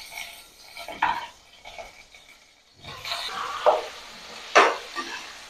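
Potato cubes sizzling in hot oil in a kadai while a slotted metal spatula stirs them, scraping and knocking against the pan; the sharpest knock comes about four and a half seconds in.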